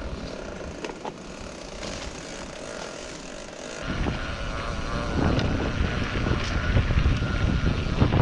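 Mountain bike riding along a dirt forest trail, with scattered clicks and rattles from the bike. About four seconds in, as the trail opens out and the bike speeds up, wind buffeting the microphone sets in as a loud low rumble that keeps growing.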